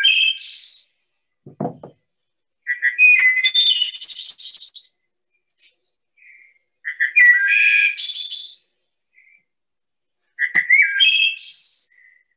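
Wood thrush singing: separate phrases about every four seconds, each a few clear whistled notes followed by a higher trill. Three full phrases, with the end of another right at the start.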